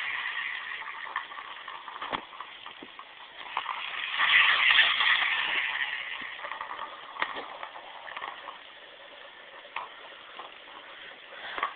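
A black Labrador playing with a cat toy. A rustling noise swells about four seconds in and then fades, with scattered clicks and taps throughout.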